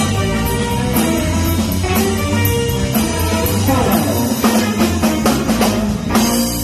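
A band playing a funk instrumental on drum kit and bass with other instruments, a busy drum fill building about four seconds in and ending on a final hit near the end, after which a held note rings on.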